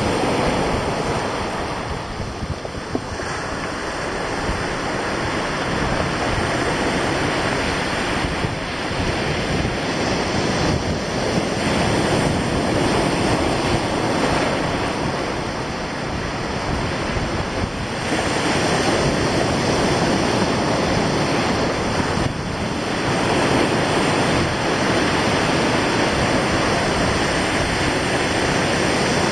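Sea surf breaking on rocks and a pebbly beach: a continuous rush that swells and ebbs as each wave comes in, with wind blowing across the microphone.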